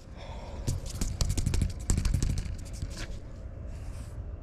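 A quick run of light clicks and rattles from a baitcasting rod and reel being handled, starting about a second in and lasting about a second and a half, with one more click near the end. Wind rumbles on the microphone throughout.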